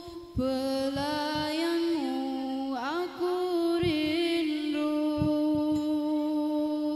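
A young woman singing a long, drawn-out wordless melisma into a microphone, holding wavering notes with a quick slide down and up about three seconds in, over a few soft low drum thumps of a rebana group. The voice stops near the end.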